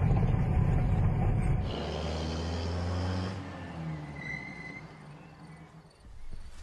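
Low rumble of a vehicle driving on a rough forest track, heard from inside the cab, cutting off sharply about a second and a half in. Soft, low sustained tones follow and slowly fade away.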